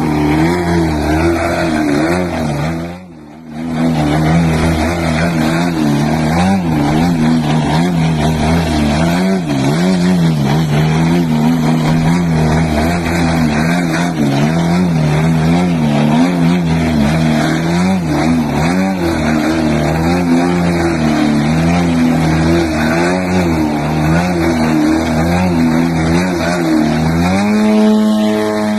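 Small engine of a model plane running, its pitch swinging up and down as the throttle changes, with a brief drop about three seconds in.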